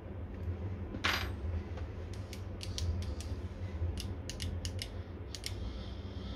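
Small metal and plastic parts handled by hand: a short scrape about a second in as a hex key works a screw in a metal block, then a run of sharp light clicks as the parts are fitted together.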